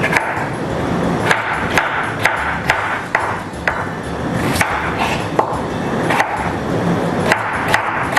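Kitchen knife cutting potatoes into cubes on a cutting board: a string of sharp knocks, roughly two a second and unevenly spaced.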